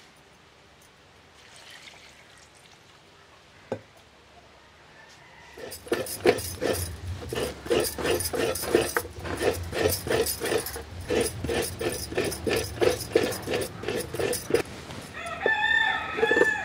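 Coconut being grated by hand on a traditional bladed scraper. It makes even, rasping strokes, about two or three a second, that start about six seconds in. Near the end a rooster crows.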